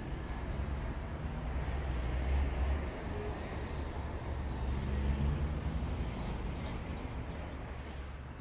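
Steady low rumble of city traffic around a park. A faint high squeal, like a bus's brakes, comes in during the last few seconds.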